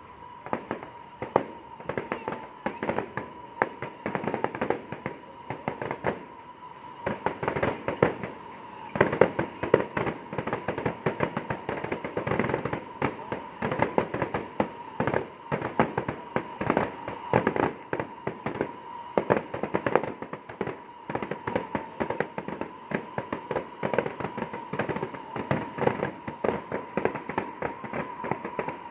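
Fireworks going off in a fast, continuous barrage of sharp bangs and crackles, several a second, heaviest about a third of the way in. A thin steady high tone hums underneath.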